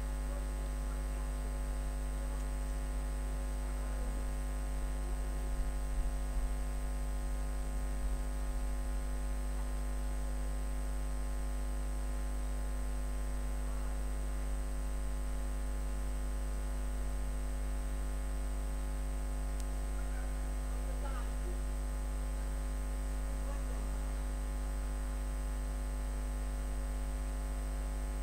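Steady electrical hum, a low buzz with a thin high whine over it, holding constant with no other sound of note.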